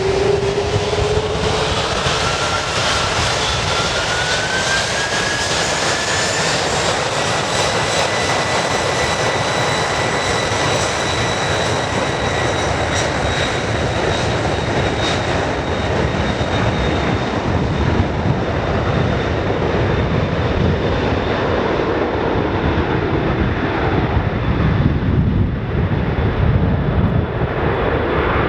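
Jet airliner engines running, with a whine that rises in pitch over the first several seconds and then holds steady over a constant rushing noise; a low rumble grows near the end.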